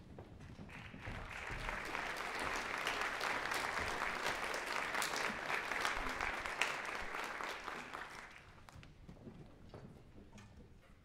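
Audience applauding in a hall. The clapping swells about a second in and dies away around eight seconds in, leaving a few scattered claps.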